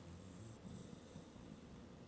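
Sleeping domestic cat breathing faintly in the quiet pause between snores.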